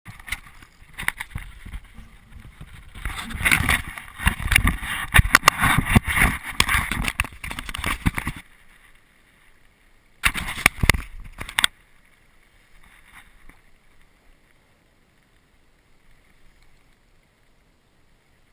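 Loud, irregular crackling and rubbing noise from hands handling the action camera close to its microphone, for about eight seconds, with a second shorter burst a little past the middle, then a faint steady hiss.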